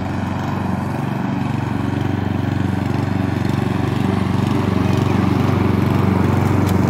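Lawn mower running steadily while being pushed across the grass, growing a little louder toward the end.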